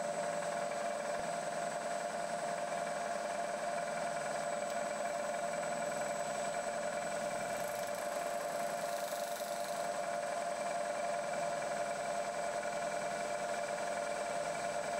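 Bridgeport milling machine running steadily, its spindle turning a centre finder against an aluminium part in the vise; a steady, unchanging hum.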